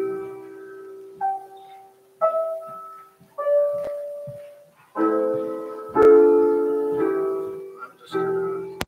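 Piano playing slowly: a held note fades, then three single melody notes about a second apart, then full chords struck about once a second.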